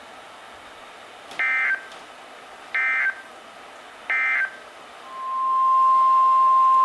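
Three short Emergency Alert System data bursts, each a brief two-tone warble, about a second and a half apart, marking the end of the preceding alert. About five seconds in, the steady single-pitched 1050 Hz National Weather Service attention tone comes in, louder than the bursts.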